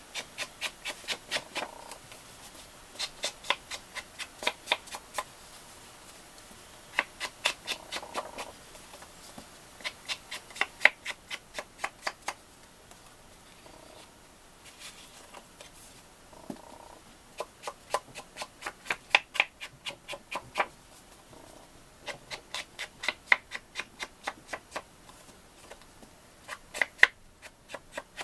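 Ink blending tool dabbed along the edges of patterned cardstock, a quick series of taps at about four or five a second, in bursts of one to three seconds with short pauses between.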